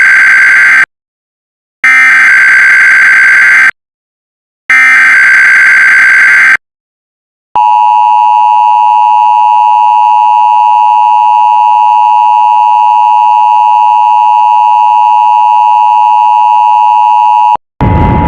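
Emergency Alert System SAME header bursts: the last part of one and two more harsh digital data bursts, each about two seconds long with short silent gaps between. Then the EAS two-tone attention signal holds steady for about ten seconds and cuts off suddenly. A noisy sound starts just before the end.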